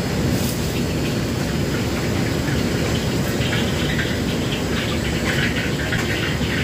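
Steady roar of a commercial wok range's burner and extraction hood, with the wok hissing and sizzling from about three seconds in as steam rises from it.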